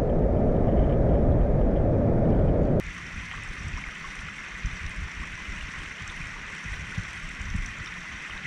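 Waves and surf washing over a rocky reef: close, loud and rumbling for nearly three seconds, then after an abrupt change a quieter, steadier wash of distant surf.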